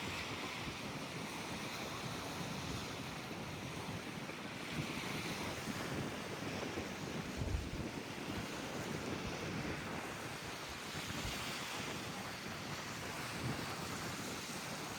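Wind buffeting the microphone: a steady rushing noise with irregular low rumbling gusts, the strongest about seven and a half seconds in.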